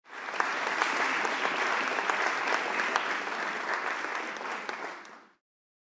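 Audience applauding, a dense mass of hand claps that fades and cuts off about five seconds in.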